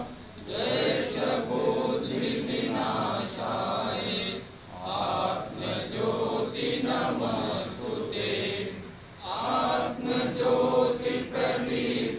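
A group of men chanting a prayer together in unison, in three long phrases with short pauses between them.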